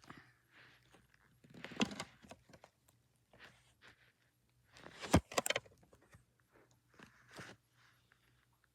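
Plastic Lego bricks being handled and pressed together: scattered clicks and light clatter, with louder bunches of clicks about two seconds in and again just after five seconds.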